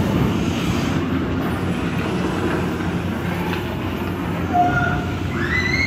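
Steady low rumbling background din, with a few short, higher pitched tones near the end.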